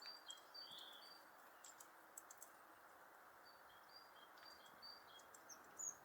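Faint great tit song: short two-note phrases, a higher note then a lower one, repeated in a run at the start and again from about four seconds in. A few faint sharp clicks come in between, over a steady low background hiss.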